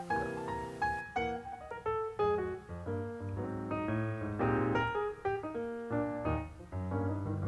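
Background piano music: a quick run of single notes and chords.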